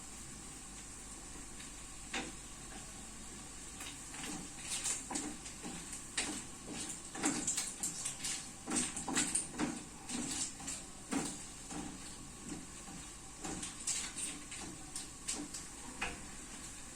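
Irregular knocks and clatter of kitchen utensils on a work surface during food preparation: scattered short taps, with a few louder ones, beginning about two seconds in.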